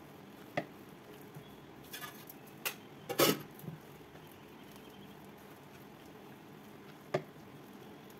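Hand mixing thick urad dal vada batter in a stainless steel bowl: soft wet squishing, with a few sharp clicks of the steel bowl. The loudest clicks come in a cluster about three seconds in, and there is one more near the end.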